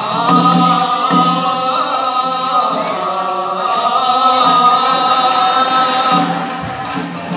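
Live Okinawan dance music: a singer holds one long steady note for about six seconds over a low, repeating pulse from the accompaniment.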